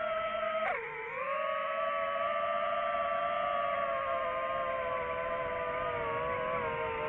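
DJI FPV drone's motors and propellers whining at a steady pitch; the pitch dips sharply about a second in, then recovers and slowly sinks as the throttle eases.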